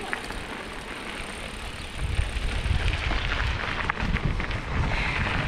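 Mountain bike tyres rolling over a loose gravel track, a steady crunching hiss. About two seconds in, a low rumble of wind on the microphone grows louder.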